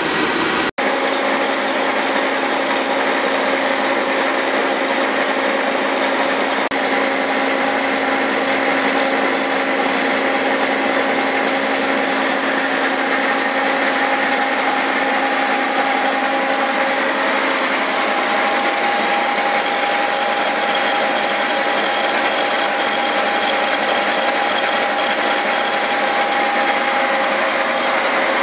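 A Cincinnati horizontal milling machine running steadily, its spline cutter turning on the arbor while it mills splines in 4340 steel axle shaft stock: a loud steady machine whine with several held tones, which shift about 18 seconds in. Under a second in, a lathe turning the bar is cut off abruptly.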